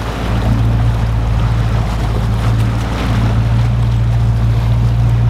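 A fishing boat's engine running steadily at trolling speed, a low even hum, over the wash of water and wind.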